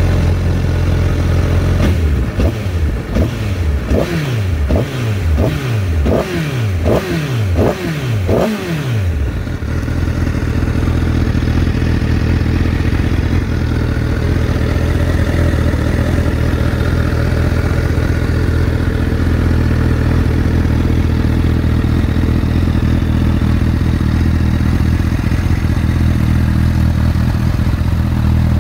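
Honda CBR1000RR inline-four running through a Moriwaki aftermarket muffler: it is blipped in a rapid run of about ten throttle blips, each rising and falling in pitch, from about two seconds in until about nine seconds in. It then settles to a steady idle.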